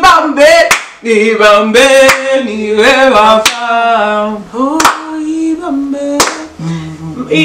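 Women singing a sung chant together while clapping their hands, with several sharp handclaps over the singing.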